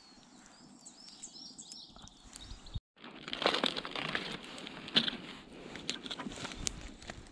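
Plastic bacon packet crinkling and crackling as it is peeled open and handled, starting about three seconds in with many sharp crackles.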